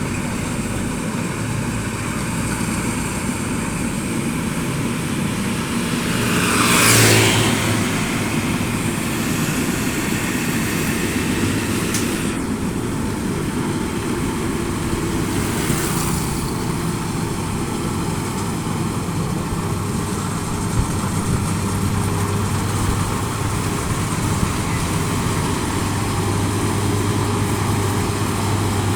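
Rice combine harvester running steadily while it harvests a paddy, an even engine drone with a brief louder swell about seven seconds in.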